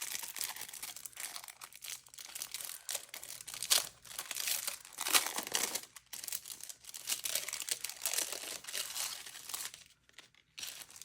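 Tissue paper crinkling and rustling as it is handled and unwrapped, in irregular bursts of rustling with a short lull near the end.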